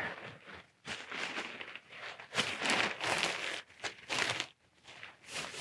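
Nylon tent flysheet rustling and crinkling in several bouts as it is lifted and handled while a pole is fed through its sleeve.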